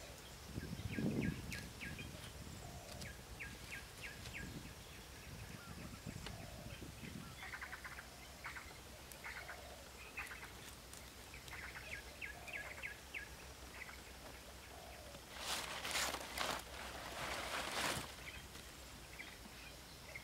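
Small birds chirping in short repeated bursts throughout. About three-quarters of the way through, a few seconds of loud rustling from large leaves being handled and laid over a pole roof frame.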